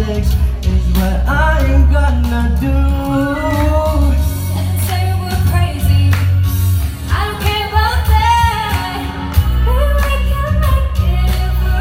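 A woman singing a pop ballad live into a microphone over a backing track with a heavy bass, played through the hall's speakers.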